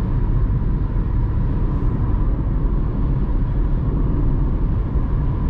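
Steady road and tyre rumble with wind noise inside the cabin of a Dacia Spring electric car cruising at about 80 km/h, with a faint steady high tone over it.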